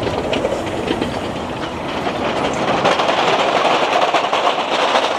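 A city bus driving past at close range, its tyres rumbling over the stone-block road with a fine, rapid clatter. The noise grows louder over the last couple of seconds.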